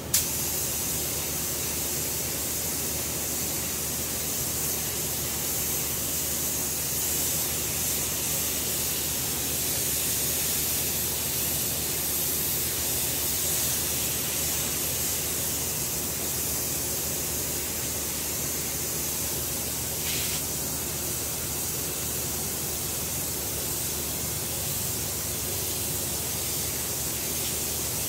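Compressed-air gravity-feed spray gun hissing steadily as it sprays black base coat. The hiss starts abruptly as the trigger is pulled and holds without a break.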